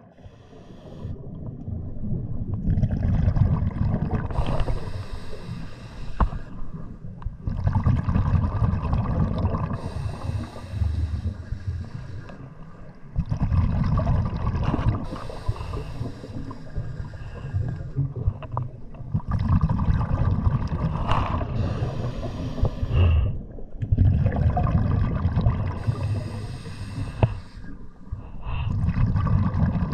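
Scuba diver breathing through a regulator underwater: long gurgling bursts of exhaled bubbles with short gaps between them, about six breaths, one every five to six seconds.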